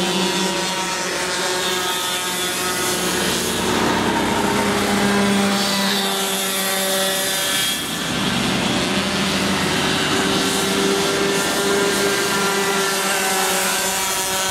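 Several go-kart engines running together as the karts lap the circuit, their overlapping buzzing tones shifting up and down in pitch as they accelerate and slow through the corners.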